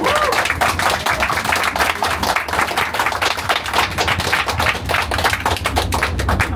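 A small group of people applauding: a dense run of hand claps that stops near the end.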